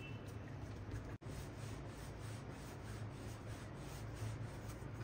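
Hands pressing dough, then a wooden rolling pin rolling out paratha dough on a floured glass tabletop: soft, steady rubbing. Broken by a brief dropout about a second in.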